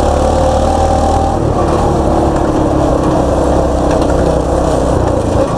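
Baja mini bike's small engine running steadily as it is ridden along, its pitch dropping slightly about a second and a half in.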